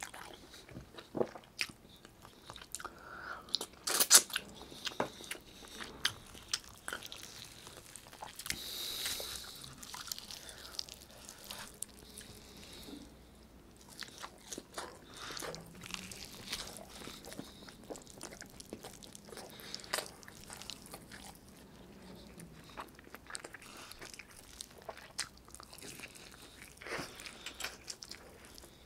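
Close-miked chewing of braised chicken adobo and rice, with lip smacks and sharp wet mouth clicks; a loud flurry of clicks comes about four seconds in.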